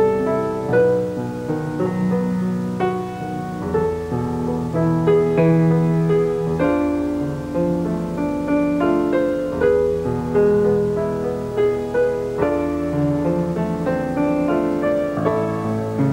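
Piano music: a slow accompaniment of chords and melody notes over low bass notes that change every few seconds.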